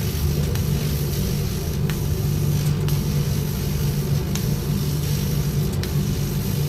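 100-watt CNC laser cutting machine running during a cut: a steady low hum with a hiss over it, with a few faint irregular ticks.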